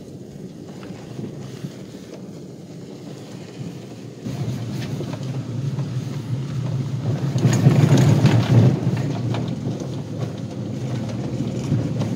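Chevy extended van driving on a gravel road, heard from inside the cab: a low rumble of tyres and engine with wind noise. It gets louder about four seconds in and is loudest around eight seconds, with gravel crackling under the tyres.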